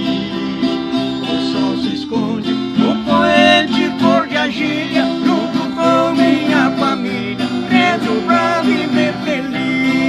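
Two men singing a Portuguese-language country song together, accompanied by strummed acoustic guitars.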